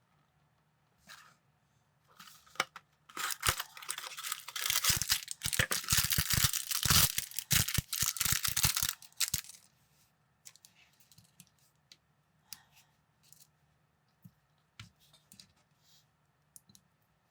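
Plastic parts bag torn open and crinkled for several seconds in the middle, with sharp knocks among the crinkling. Before and after it come scattered light clicks of plastic building bricks being handled.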